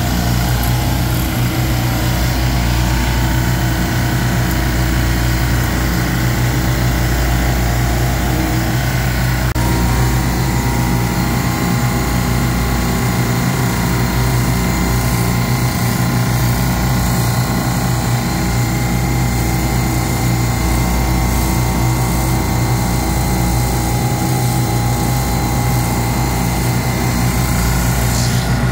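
Steady, loud hum of running refrigeration rack compressor machinery, with several steady tones over a low drone; the tones shift slightly about ten seconds in.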